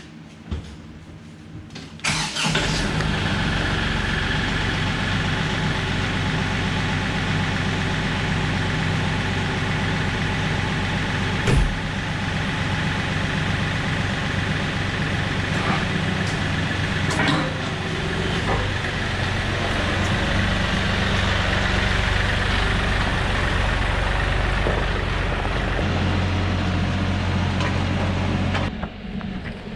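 Motor vehicle engine running steadily. It cuts in abruptly about two seconds in and drops away near the end, with one sharp click partway through.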